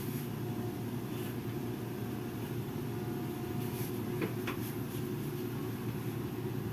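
Steady low mechanical hum, with a couple of faint scissor snips about four seconds in.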